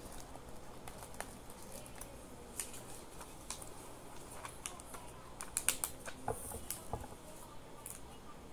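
Scattered light clicks, taps and rustles of hands working with craft materials on a table, with a quick cluster of sharper clicks a little past halfway.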